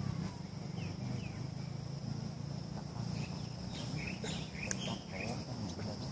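Insects droning steadily at two high pitches, with short bird chirps mostly in the middle of the stretch, over a low steady hum. A single sharp click sounds about three-quarters of the way through.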